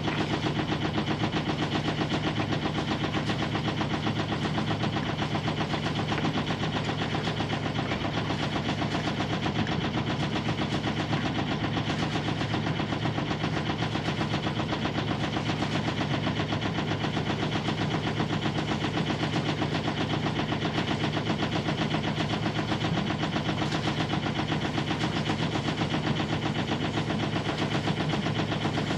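The freshly rebuilt inboard engine of a 1965 Alberg 30 sailboat running steadily with a rapid, even pulse as the boat motors out of its slip.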